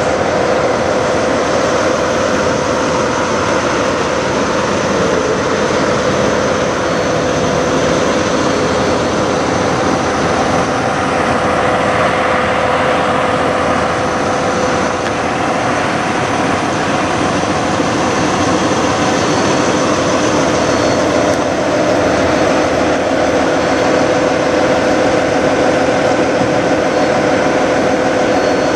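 Parked diesel semi trucks idling: a loud, steady drone with a constant mid-pitched hum running through it, unchanging throughout.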